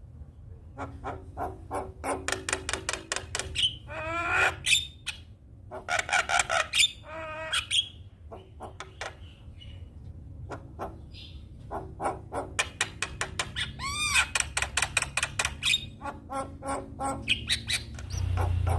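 Javan myna singing: rapid runs of harsh clicks and chattering, broken by wavering whistled notes that glide up and down.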